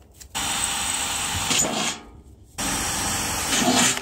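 Cordless drill boring small holes through the thin metal bottom of a tin can, in two runs of about a second and a half each with a short pause between, each growing briefly louder near its end.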